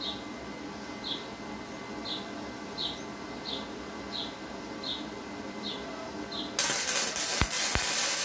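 Self-shielded flux-core wire welding arc from a small 120-amp MIG machine, crackling and hissing for about two seconds as a tack weld is struck, starting near the end. Before it, a faint high-pitched chirp repeats a bit under twice a second.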